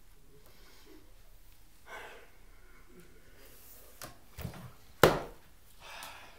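A person breathing and moving about in a quiet room, with a soft breath about two seconds in and again near the end, and one sharp knock about five seconds in.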